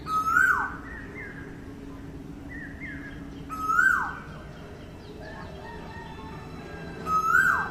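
A bird calling loudly three times, about three and a half seconds apart, each a short call that rises and then falls steeply in pitch, with fainter bird chirps in between.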